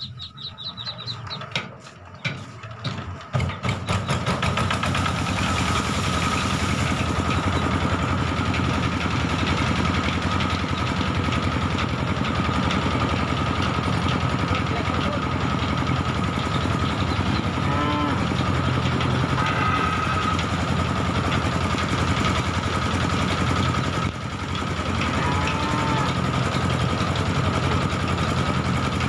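Small engine of a power rice thresher being started: it catches about three seconds in and then runs steadily with the threshing drum, a constant whine over the motor's drone.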